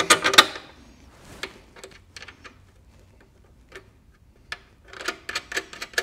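Scattered sharp metallic clicks and taps of a wrench and bolt being worked on a motorcycle's saddlebag support bracket. There are a few louder clicks at the start, sparse ones in the middle, and a quicker run of clicks near the end.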